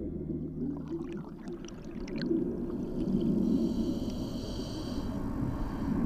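Underwater sound of a scuba diver's breathing: a steady low rush and gurgle of exhaled bubbles, with a patter of bubbling clicks about a second in and a higher hiss of breath through the regulator near the middle.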